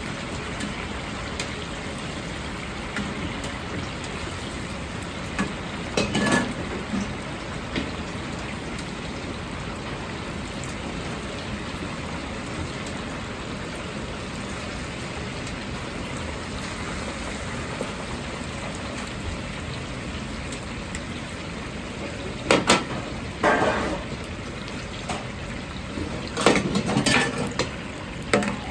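Chicken karaage pieces deep-frying in a large wok of hot oil, a steady dense sizzle. A metal ladle and wire strainer clank against the wok a few times: about six seconds in, and in two clusters near the end.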